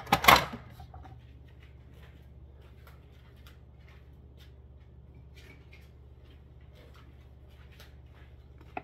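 Plastic food-processor lid clattering as it is taken off and set down on the counter, a few sharp knocks in the first half second. Then only a faint, steady low hum with scattered light ticks, and a short click near the end.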